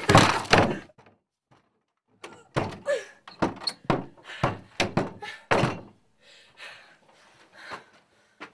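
A hand banging on a door: two heavy thuds, then a pause of about a second, then a quicker string of thuds that fades to a few faint knocks near the end.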